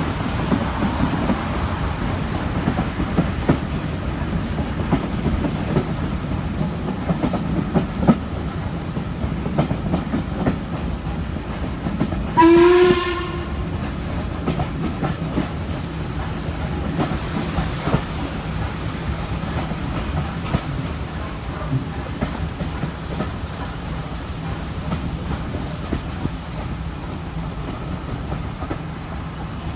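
Stanier Black 5 steam locomotive hauling a passenger train, heard from a carriage window: steady running noise with irregular clatter of wheels on rail joints. About twelve seconds in comes one short whistle blast of about half a second, the loudest sound here.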